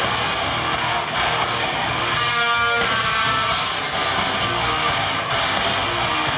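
Live rock band playing loudly, led by strummed electric guitar, with a held note standing out about halfway through.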